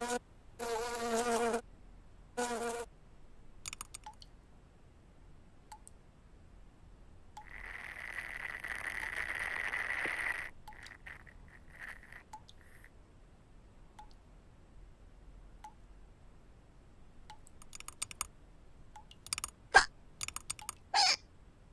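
Cartoon fly buzzing: a wavering, pitched drone in two short bursts in the first few seconds. Later a steady hiss lasts about three seconds, and near the end come quick, light clicks and ticks.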